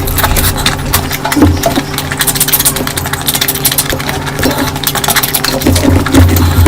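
Close-miked eating sounds: dense, irregular wet chewing and mouth clicks, over a steady low hum.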